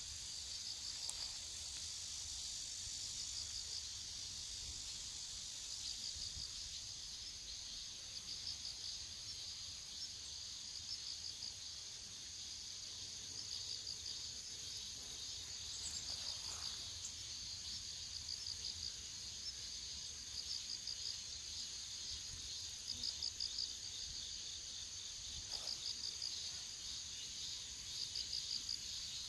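Crickets chirping in a chorus: a steady high-pitched trill with pulsed chirps repeating every second or two.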